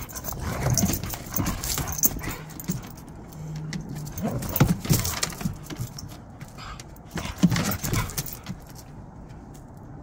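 Two Siberian huskies play-fighting, with short low grumbling vocalizations and their paws and claws clattering on wooden deck boards in irregular bursts. Quieter over the last couple of seconds.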